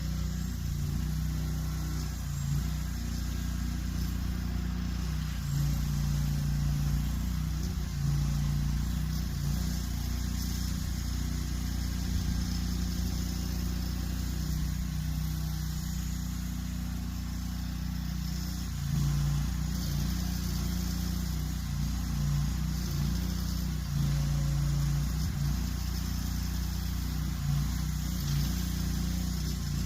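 Mower's engine running steadily under load, pulling a disc harrow with a chain drag behind it. The level and pitch rise and fall slightly.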